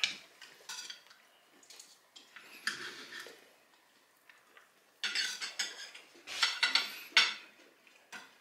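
Knife and fork clinking and scraping on a plate as a piece of cooked duck is cut and picked up, light at first and louder from about five seconds in.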